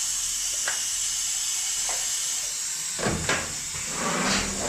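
Hot plate welding machine for tanks running: a steady high hiss with a couple of light clicks, then from about three seconds in a low hum and a series of knocks as the machine moves.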